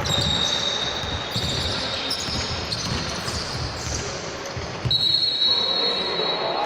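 A basketball bounces on a hall floor amid players' footsteps. About five seconds in, a long, shrill referee's whistle blast begins and runs for nearly two seconds.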